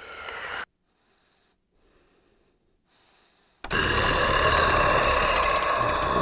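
Horror-film sound design. A rising swell cuts off abruptly, a few seconds of near silence follow, and then a loud, harsh crackling noise bursts in suddenly about three and a half seconds in and keeps going.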